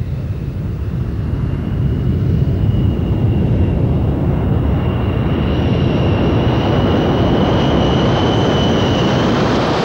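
B-52 bomber's eight jet engines at high power as it flies low past and climbs away. The jet noise builds over the first two or three seconds and then holds loud, with a steady high whine above it from about halfway.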